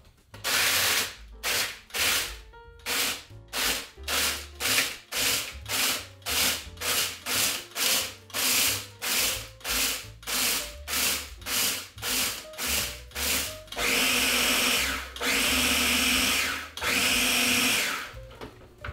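Electric mini food chopper pulsed in short bursts, about two a second, then run in three longer bursts of about a second each. It is grinding ginger snap cookies with brown sugar and ginger into fine crumbs for a pie crust.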